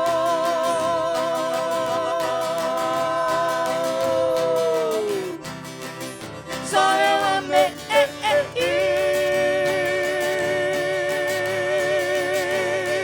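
Sertanejo duo song with guitar: two voices hold a long note in harmony with vibrato, sliding down about five seconds in. A short wavering harmonica fill follows, then another long harmonised held note.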